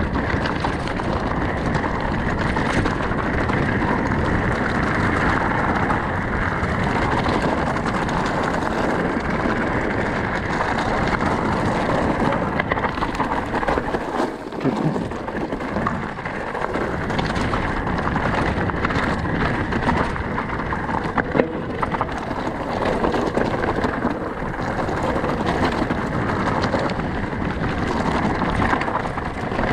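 Mountain bike rolling fast down a rocky gravel trail: a steady rush of tyre crunch, bike rattle and wind on the microphone, with scattered knocks and a sharper one about two thirds of the way through.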